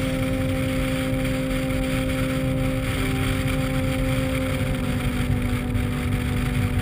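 Motorcycle engine running at steady cruising revs, heard from on the bike, with a steady engine note over low wind and road rumble.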